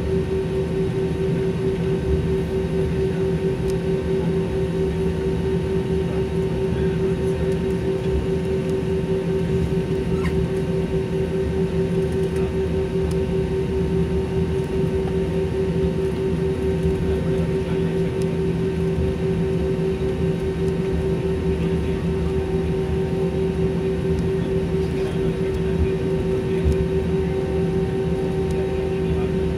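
Steady cabin noise of a jet airliner taxiing, heard from inside the passenger cabin: the engines at low taxi power and the air system making an even rumble with a constant hum that does not change.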